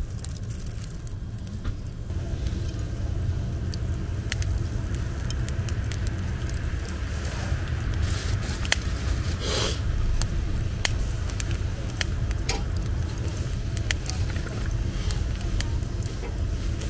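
Charcoal grill with shellfish cooking on the grate: scattered sharp pops and clicks of crackling coals and heated shells, with a short louder hiss about halfway through, over a steady low rumble.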